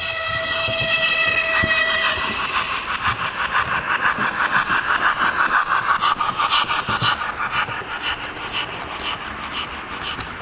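Sound chip in a 00-gauge model steam locomotive: a multi-tone steam whistle that stops about two seconds in, then a fast, even run of exhaust chuffs as the engine passes, fading away near the end.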